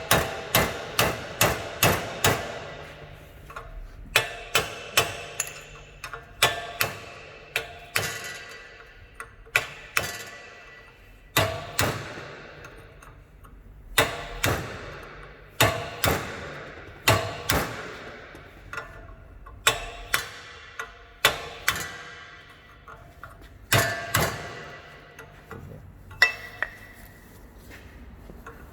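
Hammer striking a chisel against the top retaining washer of a Holden VN Commodore front strut, to tap it round and loosen it. Sharp metallic blows ring briefly, coming in quick runs of several strikes with short pauses between them.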